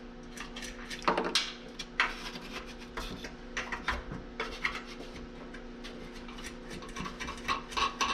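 Metal parts of an air conditioner clinking, scraping and rubbing as its electric motor is worked loose, in a string of short irregular knocks, over a steady low hum.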